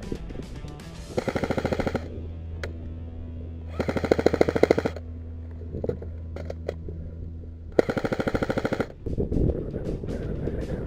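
An airsoft gun firing on full auto: three bursts of rapid, evenly spaced shots, each about a second long, a couple of seconds apart.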